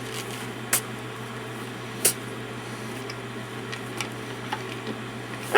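Steady low electrical hum with faint room noise, broken by a few short, sharp clicks spaced one to two seconds apart.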